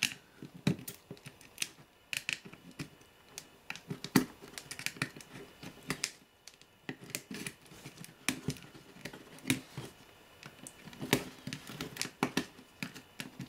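Thin metal screwdriver tapping, clicking and scraping against the pins, wire terminals and metal plate of a radio circuit board as it is pried apart, in irregular light clicks.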